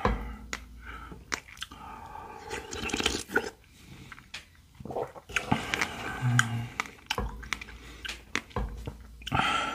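Close-miked eating sounds of strawberry shaved ice: chewing and swallowing spoonfuls of the soft, half-melted ice, with many sharp wet mouth clicks and smacks.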